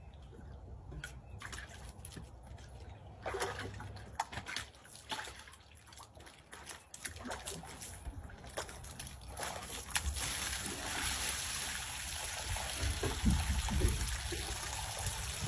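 A dog sloshing and splashing in water in a plastic storage tub as it climbs in, with scattered splashes at first. From about ten seconds in, a steady trickle as water spills over the tub's sides while the dog lies in it.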